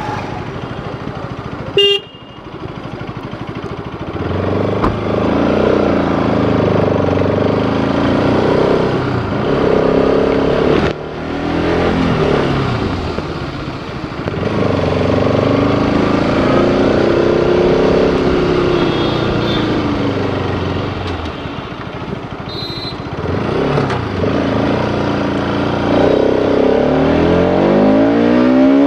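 Bajaj Pulsar RS200's single-cylinder engine heard from the rider's seat, revving up and easing off again and again while riding through town, with a strong rise in revs near the end. A brief high beep sounds about two seconds in.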